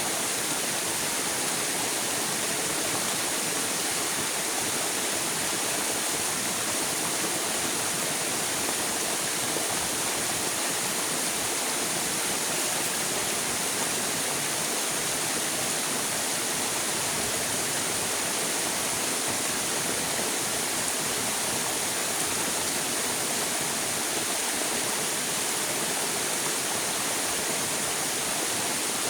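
River water flowing steadily, an even rushing with a bright hiss.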